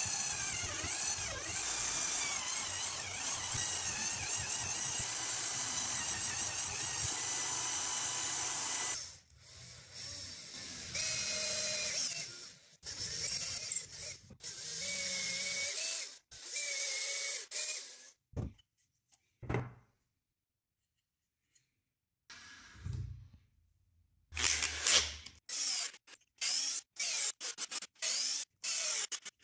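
Bosch drill in a drill stand boring into a wooden stock, running steadily with a motor whine for about nine seconds. After that a Bosch cordless drill driver runs in short bursts into the wood, with a quiet spell and a few knocks in the middle and rapid short trigger pulses near the end.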